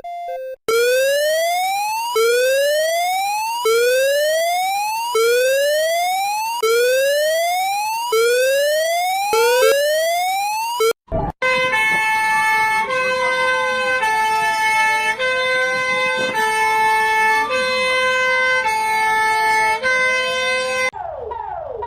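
Emergency-alert siren tones. First a rising whoop sweeps up over and over, about every second and a half. After a brief break near the middle, a different alarm follows: stepped tones alternating under a tone that glides slowly up and down.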